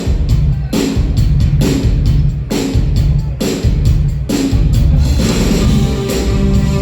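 Live rock band opening a new song: a drum kit beat with a heavy, booming low end and strong hits a little under a second apart, then sustained chords joining in about five seconds in.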